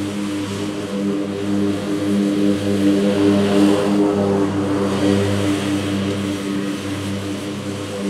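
Scag Cheetah zero-turn mower's engine running steadily at mowing speed, holding an even pitch while its level swells and dips about once a second.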